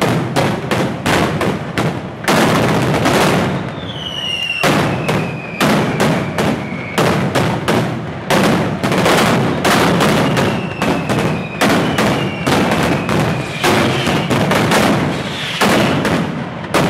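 Mascletà: a rapid, unbroken string of loud firecracker bangs, several a second. Whistling fireworks cut through now and then with whistles that fall in pitch.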